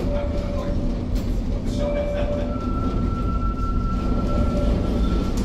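Historic tram running with a steady low rumble from its wheels on the rails, while its wheels squeal as it rounds a curve: two short squeals in the first couple of seconds, then a long high-pitched squeal held until near the end.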